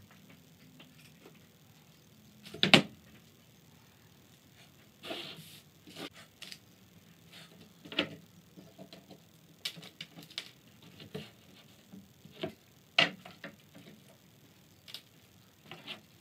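Irregular knocks and clicks of wooden chair parts and tools being handled at the workbench. One sharp knock about three seconds in is the loudest, and there is a short scraping rustle around five seconds in.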